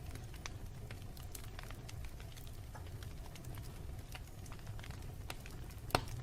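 Wood fire in a fireplace crackling: a steady low rumble of flames with scattered small pops, and one louder pop near the end.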